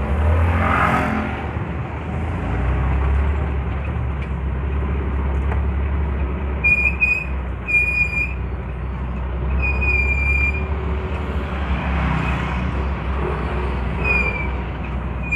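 Owner-type jeep's engine and road noise heard from inside the cabin while driving slowly, a steady low rumble. From about halfway in there are several short high-pitched beeps, with a longer one near the end.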